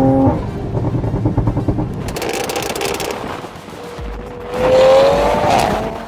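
Toyota MK5 Supra's 3.0 turbocharged B58 inline-six, breathing through catless downpipes and a valved Fi catback exhaust, revs up and lifts off just after the start, then pops and crackles rapidly on the overrun. About four seconds in it pulls up through the revs again, then drops away near the end.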